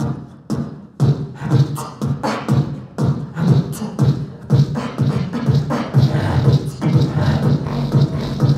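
Beatboxing into a handheld microphone: a steady beat of mouth-made kick-drum, snare and hi-hat sounds, about two beats a second.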